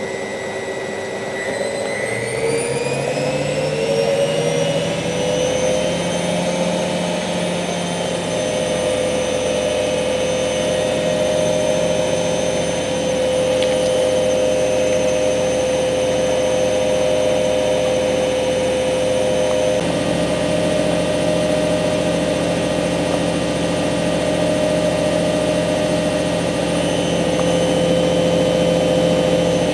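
Hoover Ökologic WA1000 De Luxe washing machine's motor speeding up with a rising whine over a few seconds, then running steadily at a high, even pitch.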